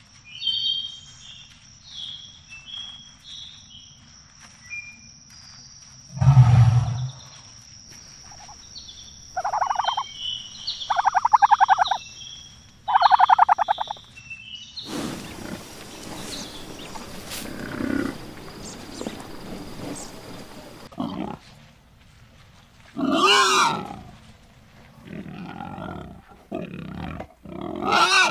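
A run of different animal calls, one after another: at first chirping birds and insects over a steady high hum, then a deep grunt, three long throaty roaring calls, a stretch of rough noise, and more calls near the end.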